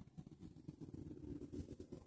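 Domestic cat growling in a low, rough rumble while guarding the mouse it holds in its mouth.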